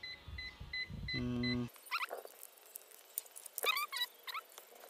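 A short electronic beep repeating about three times a second, stopping about a second in. After a brief hum, short high chirps come in two quick clusters, the second near the end.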